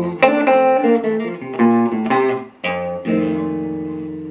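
Hollow-body archtop guitar played solo: a closing run of picked notes and chords, then a final chord struck about two and a half seconds in that rings out and slowly fades, ending the song.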